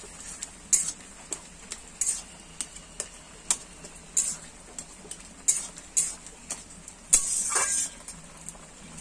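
A metal spatula scraping and knocking against an aluminium kadai as a simmering curry is stirred, in irregular strokes about once or twice a second, with one longer scrape about three quarters of the way through.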